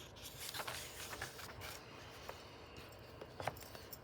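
Soft paper rustling as book pages are handled and turned, with a few brief swishes and light ticks.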